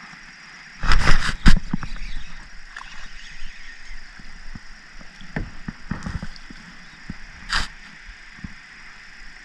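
Small hooked fish splashing at the water's surface as it is reeled in to the kayak, with a loud burst of splashing about a second in. Scattered small clicks and knocks follow as the fish is handled and lifted out.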